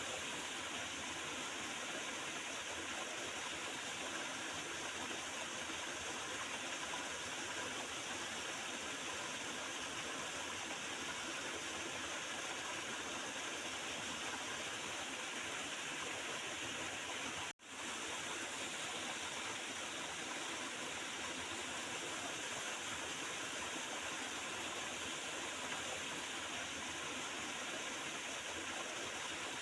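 Water gurgling and flowing steadily in a small river, with a momentary break in the sound a little past halfway through.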